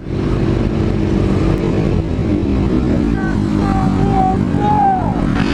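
Yamaha FZ-09 (MT-09) three-cylinder engine running steadily while the motorcycle is ridden, with rushing noise on the rider's microphone.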